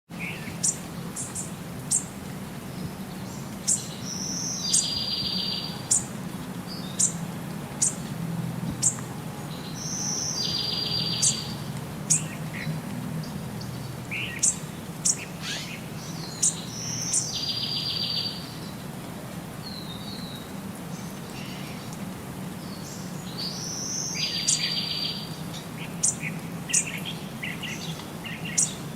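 Small birds chirping, with short high calls and a brief buzzy trill phrase repeated about every six seconds, over a steady low hum.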